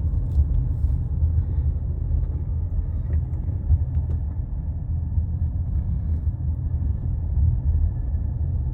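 A car driving, heard from inside the cabin: a steady low road and engine rumble.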